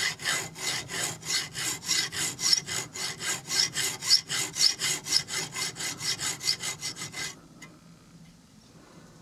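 Hacksaw blade sawing back and forth in the slot of a small slotted metal screw head, cleaning out a rust-pitted slot. Quick short strokes, about five a second, stopping about seven seconds in.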